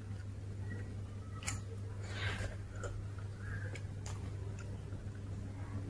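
Close-miked eating mouth sounds: a handful of short, sharp wet lip smacks and clicks as soft food dipped in sambar is taken into the mouth and chewed, over a steady low hum.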